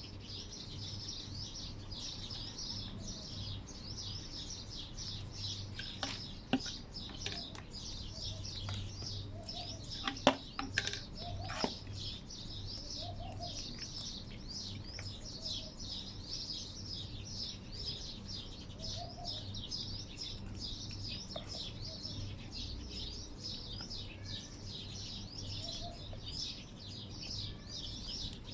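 Many small birds chirping continuously in a dense chorus. A few sharp knocks and clatters come about six seconds in and again around ten to twelve seconds in.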